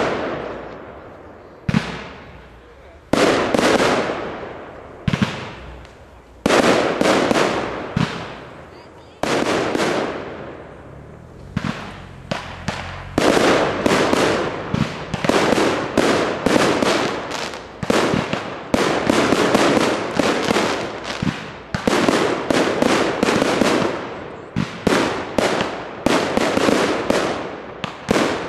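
Aerial fireworks shells bursting in the sky, each sharp bang trailing off. For the first dozen seconds the bangs come a second or more apart; from about thirteen seconds in they follow in a fast, dense barrage.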